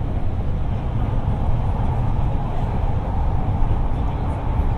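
Guangzhou Metro Line 3 B4-series train running, heard from inside the car: a steady low rumble of wheels and running gear.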